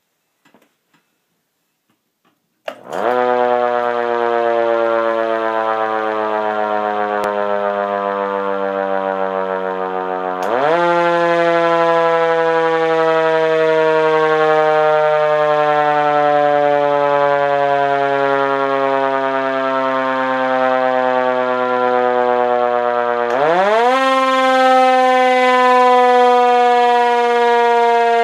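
Federal Signal Q1B mechanical siren winding up sharply about three seconds in, then slowly sliding down in pitch. It winds up twice more, each time followed by a long, slow wind-down.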